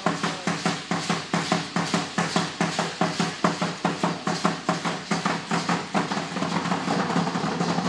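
Danza azteca percussion: a drum and the dancers' ankle rattles keep an even beat of about three to four strikes a second. In the last couple of seconds the beat blurs into a more continuous rattle.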